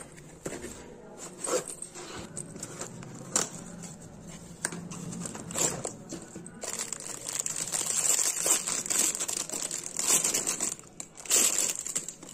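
Packaging being opened by hand: taped cardboard wrapping tearing and rustling in sharp irregular crackles, then a thin plastic bag crinkling, busiest and loudest in the second half as the item is taken out of it.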